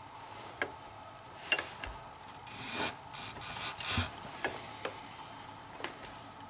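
Hand handling and turning an old outboard motor's propeller on its lower unit: scattered light clicks and rubbing, with two short swells of rustling noise a little before and after the middle.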